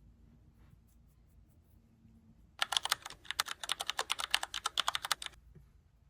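Typing on a computer keyboard: a quick run of keystrokes starting about halfway through and lasting under three seconds, then stopping.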